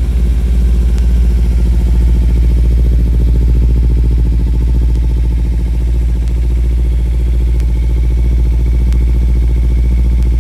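Kawasaki Ninja 300's parallel-twin engine idling steadily through a Yoshimura exhaust.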